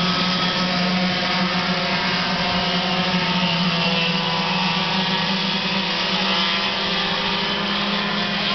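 Racing go-kart engines running steadily, a continuous small-engine buzz with no pauses.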